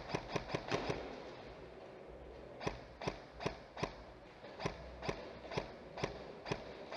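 Airsoft gunfire: a quick string of semi-automatic shots, about five a second, that stops about a second in. After a pause, slower sharp clicks come at about two or three a second.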